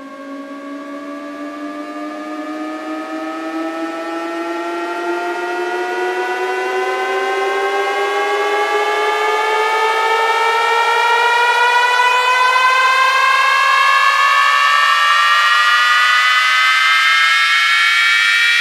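A synthesized riser: one buzzy tone gliding slowly and steadily upward in pitch while it grows louder, with a second rising layer joining about halfway through, building toward a drop.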